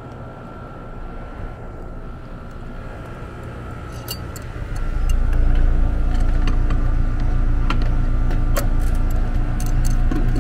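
Trane air-conditioning condensing unit running with a steady low hum that grows louder about five seconds in. Light metallic clicks join it from about four seconds in, as a service valve cap and wrench are handled at the line set.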